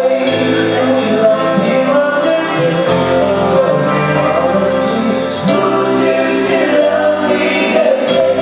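Live band playing a song with a singer, steady beat and bass under sustained chords.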